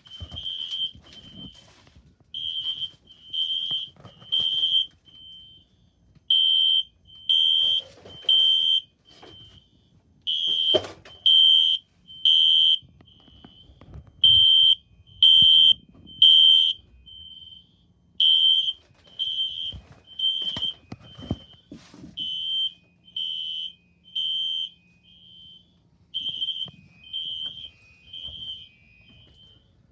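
Electronic fire alarm horns sounding in the temporal-3 evacuation pattern: three loud high-pitched beeps and a pause, repeating about every four seconds. A fainter single beep falls in each gap, and there are a few sharp clicks.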